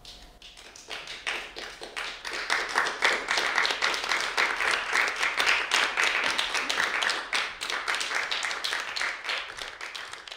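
A small audience applauding: the clapping starts with a few scattered claps, builds to a full patter within a couple of seconds, then thins out near the end.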